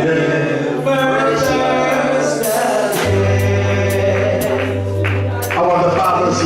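Gospel music: voices singing over a band, with sustained bass notes and a steady cymbal beat about twice a second.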